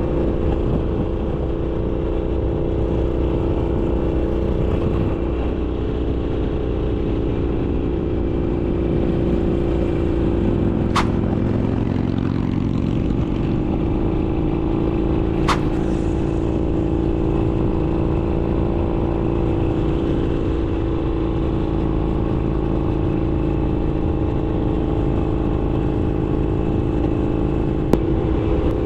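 Harley-Davidson Sportster Iron 883's air-cooled V-twin, breathing through an RSD Roland Sands 2-into-1 exhaust, running at fairly steady revs while riding, easing slightly about twelve seconds in. A few short sharp clicks stand out over it.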